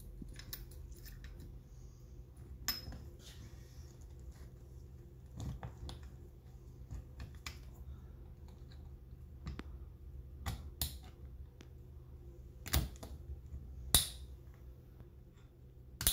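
Small metal clicks and scrapes as a steel retaining clip is pried and pressed into the groove of a starter's Bendix drive with a small flat tool. Sharper clicks come in the last few seconds, the sound of the clip snapping into its seat.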